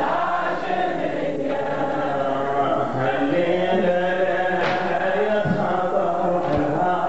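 A crowd of men chanting together, a Shia mourning lament (latmiya) led by a eulogy reciter. The voices are continuous and sung in unison.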